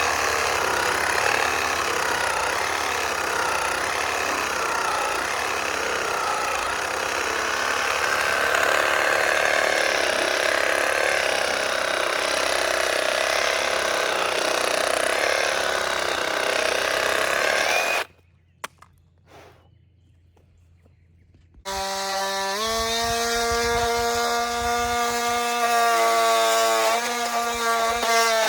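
A power saw cutting through wood, a harsh steady noise that stops abruptly after about 18 seconds. After a few seconds of near silence with a single click, an engine runs at a steady speed, its pitch stepping a couple of times.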